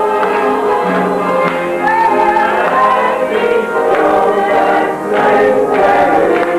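Choral music: a choir singing sustained lines over instrumental accompaniment.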